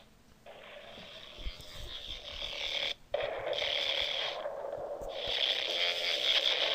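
A video's added soundtrack played back through a computer speaker and picked up by a microphone held up to it, with the poor, thin sound of speaker-to-mic re-recording. It starts about half a second in, cuts out briefly about three seconds in, and comes back louder.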